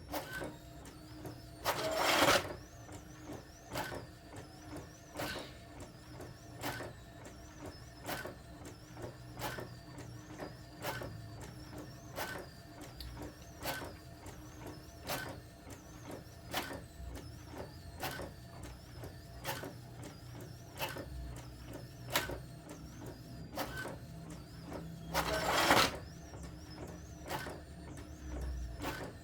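Brother DCP-T700W ink-tank inkjet printer printing: sharp clicks repeating about every second and a half with softer ones between, over a steady low hum. Two louder half-second bursts of noise come about two seconds in and near the end.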